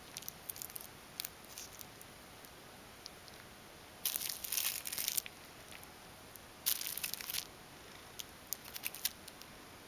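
Plastic drinking straw crinkling and crackling as a ragdoll cat bats, grabs and bites at it, with scattered light clicks and two longer crinkly bursts about four and seven seconds in.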